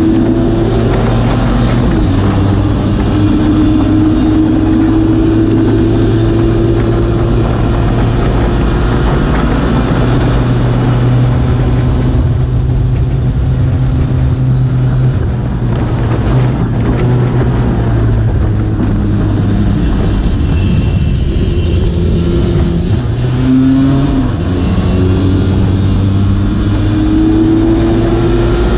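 Onboard sound of a race-tuned Lambretta two-stroke scooter engine held at high revs, its pitch climbing slowly as it pulls along the straights, over a steady rush of wind and road noise.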